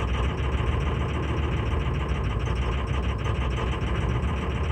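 A 2006 Ford 6.0L Power Stroke V8 diesel idling cold at about 800 rpm, heard from inside the cab: a steady run with a faint rapid ticking. It is idling rough, with cylinders 3 and 6 dropping out on the power balance, which the mechanic puts down to failing injectors and a weak fuel injection control module (FICM).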